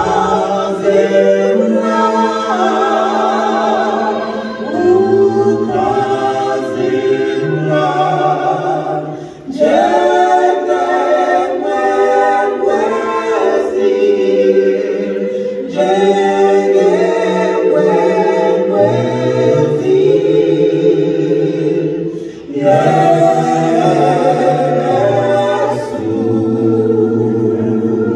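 An a cappella vocal quartet, one man's voice and three women's voices, singing a gospel song in close harmony through handheld microphones, with short breaks between phrases.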